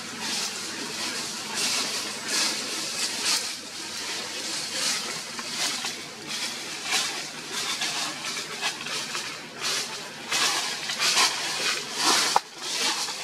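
Irregular rustling of leaves and thin twigs as a baby macaque grabs and tugs at them on a tree branch, in short hissy bursts, with one sharp click near the end.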